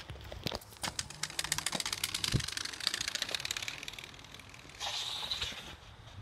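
Playing card taped to a kids' bike frame flapping against the spokes of the turning wheel: a fast run of clicks that quickens into a rattle, then thins out. A short rush of noise follows about five seconds in.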